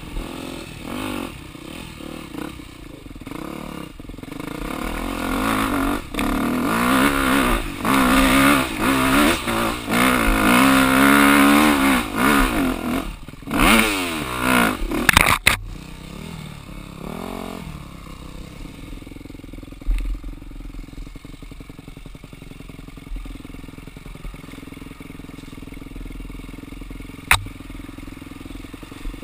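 Off-road dirt bike engine revving and accelerating, its pitch climbing and falling again and again, loudest through the middle. It then settles to a quieter, steadier running, with one sharp click near the end.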